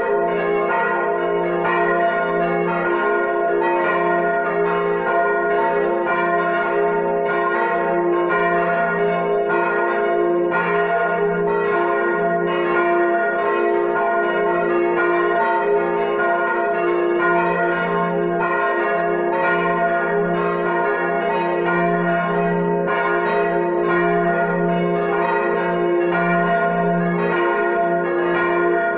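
Full peal of the church's four swinging bronze bells, tuned des'', b', as' and f', ringing together with overlapping strokes several times a second and the deep f' bell strongest.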